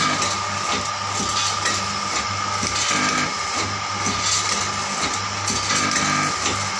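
Automatic snack packaging machine running, a steady mechanical clatter over a low hum and a constant high whine.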